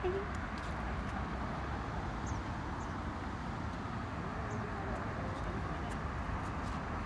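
Steady low rumble of road traffic from a nearby road bridge, with a few faint high chirps.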